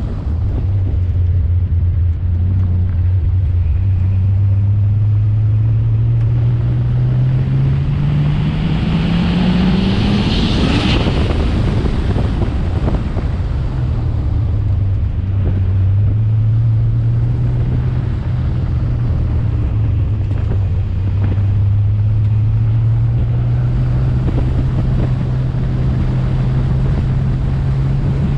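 Nissan Skyline R32's engine from outside the car, its revs climbing steadily for about ten seconds, then dropping sharply at an upshift around twelve seconds in and climbing again. A brief rush of noise comes near the top of the first climb, with wind on the microphone throughout.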